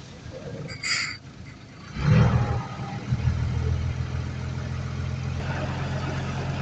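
Heavy earthmoving machine's diesel engine. A brief hiss comes about a second in, then about two seconds in the engine comes in loud and runs on steadily.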